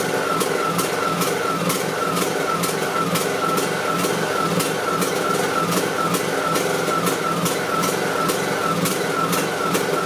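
Briggs & Stratton 18.5 hp Intek engine on a riding mower idling and surging, its speed rising and falling about twice a second. The owner blames the surging on a clogged carburettor pilot jet.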